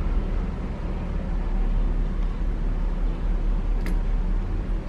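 Steady low background rumble with an even hiss above it, with one faint short click about four seconds in.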